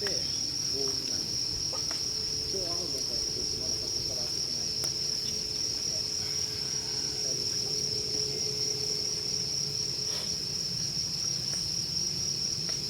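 Crickets trilling: a steady, unbroken high-pitched chorus, with a few faint clicks over it.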